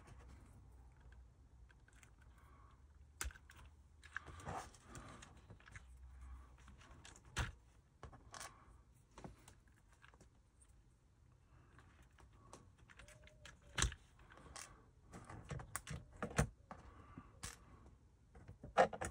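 Quiet, irregular clicks and taps of small parts being handled on a radio-control car, as the metal body pins are swapped and the plastic body is fitted to the chassis, with a few sharper clicks scattered through.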